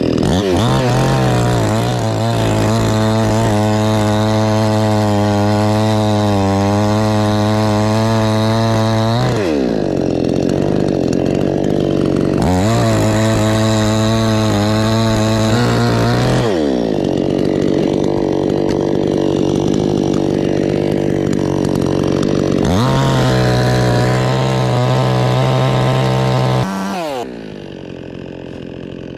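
Chainsaw cutting into a coconut palm trunk at full throttle in three long runs, the revs falling back between cuts and dropping away near the end.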